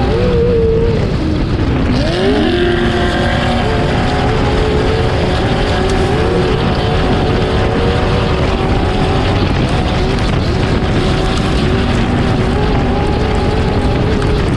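Steady motor whine whose pitch wavers constantly and glides up about two seconds in, over a dense rushing noise.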